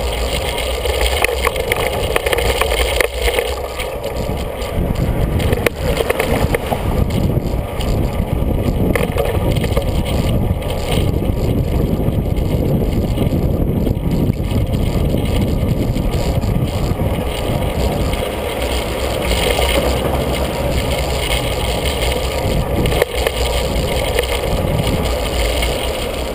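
Steady rumble of a bicycle being ridden along a city street, heard from a camera mounted on the bike: tyre and road noise with wind on the microphone, and a couple of brief knocks from bumps.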